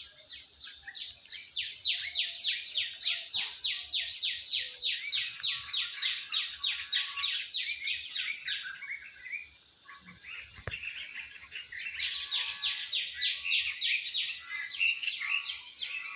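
Songbirds chirping in a fast, continuous run of quick, falling high-pitched notes, about five a second, which thins out for a couple of seconds in the middle before resuming. A single brief low knock sounds about eleven seconds in.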